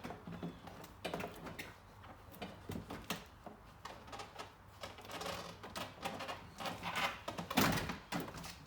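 Plastic door trim panel being handled and fitted against a car door: irregular small clicks, taps and rustling, with a louder knock near the end.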